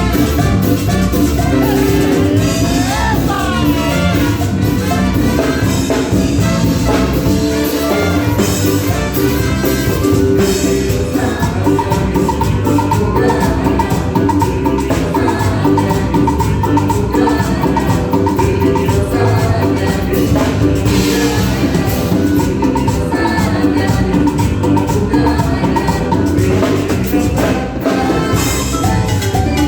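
Live band playing a Latin dance song through a sound system, with drum kit and percussion keeping a steady beat, plus melodic instruments. It is loud and continuous.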